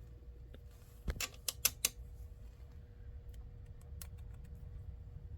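A few sharp clicks and taps of small kit parts being handled, about one to two seconds in, followed by fainter ticks, over a low steady hum.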